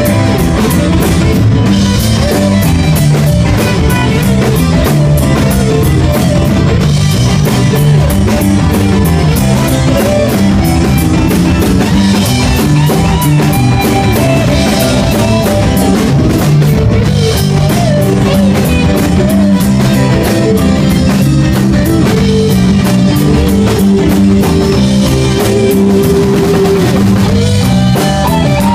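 Rock band playing live, with a drum kit keeping a steady beat under electric guitars.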